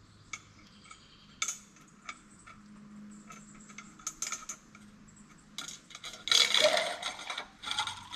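Light metal clicks and clinks as a steel fork spring is slid down over the damping rod into a motorcycle fork tube. About six seconds in comes a louder clattering rattle lasting about a second, then a few more clicks.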